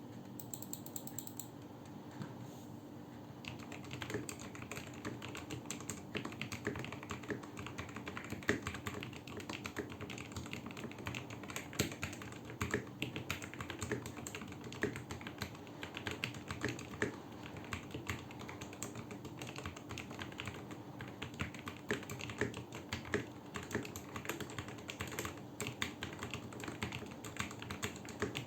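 Typing on a Vortexseries GT-8 mechanical keyboard with Outemu Red linear switches lubed with Krytox 205G0 and GPL105, and Durock plate-mount stabilizers tuned with the Holee mod. A few keystrokes at first, then continuous fast typing from about three seconds in.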